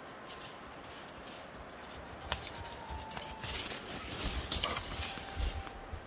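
Footsteps crunching and rustling through dry, frost-dusted leaf litter and grass on a forest floor, louder from about two seconds in and loudest near the end.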